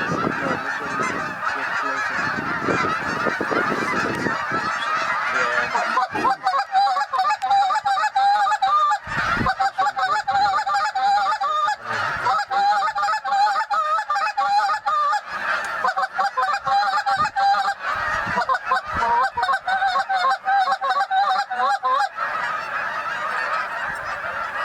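A large flock of geese honking without pause. From about six seconds in until near the end, louder, closer honks come in quick runs over the steady din of the flock.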